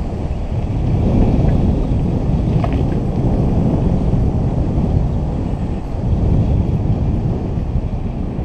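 Wind rushing over the microphone of a moving ride along pavement: a steady low rumble with no clear engine note.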